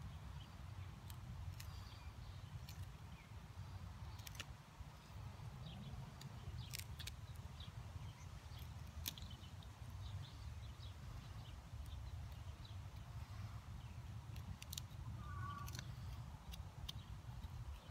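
Knife blade scraping and clicking against a small piece of tree root as it is whittled, in short irregular strokes, over a steady low rumble.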